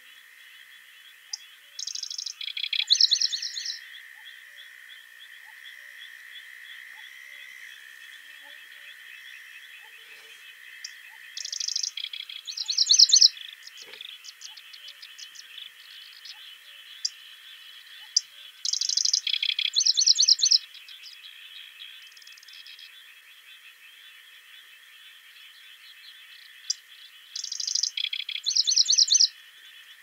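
A songbird sings the same short song four times, about every eight seconds. Each song opens with a high burst and runs into a quick series of notes, over a steady high-pitched background chorus.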